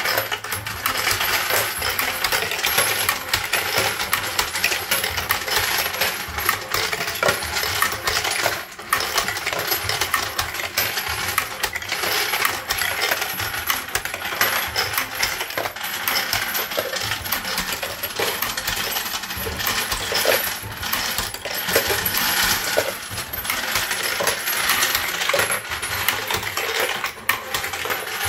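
Brass cartridge cases clinking and rattling continuously as an automated case sorter runs: the case feeder shakes them along and they drop through 3D-printed tubes into 3D-printed bins, a dense, steady clatter of small metallic clicks.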